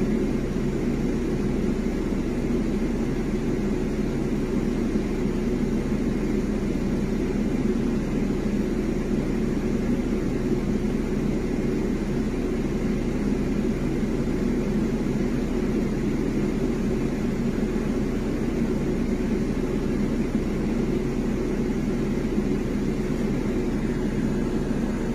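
Air conditioning system running: a steady mechanical hum with several low steady tones that does not change.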